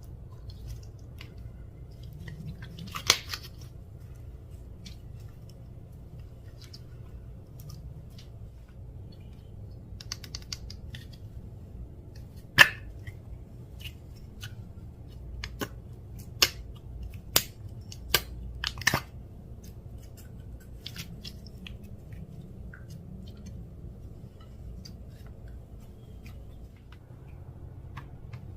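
Hands working clear slime with its mix-ins, giving scattered sharp clicks and pops, with a run of them in the middle third, over a steady low hum.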